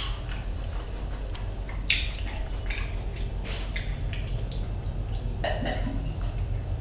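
A man drinking cola from a glass, swallowing it in gulps, with a clink of the glass at the start and a sharp click about two seconds in, over a steady low hum.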